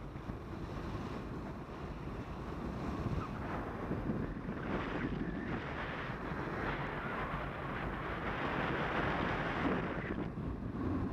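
Airflow rushing and buffeting over the microphone of a camera on a paraglider in flight. The rush grows fuller from about halfway through and eases near the end.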